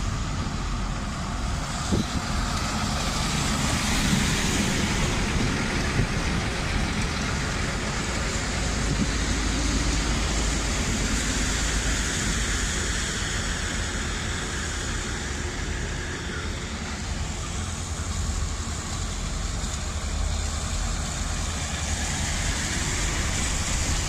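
Heavy road-works vehicles' diesel engines running with a steady low rumble, under an even hiss of rain on the wet road. Two short knocks stand out in the first several seconds.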